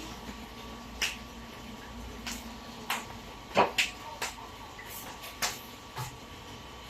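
Irregular light clicks and knocks, about ten of them, some in quick pairs, over a faint steady hum.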